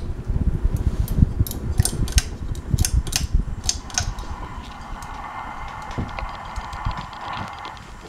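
A 52-inch Hampton Bay Cameron II Plus ceiling fan spinning down after being switched off. Air from the blades buffets the microphone, with scattered light clicks and rattles, and this fades over the first half. A softer, steady whir is left for the last few seconds.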